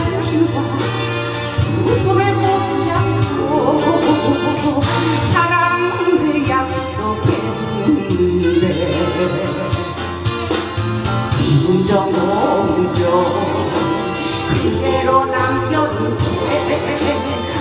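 A woman singing live into a handheld microphone over instrumental backing music with a steady bass line and a regular drum beat.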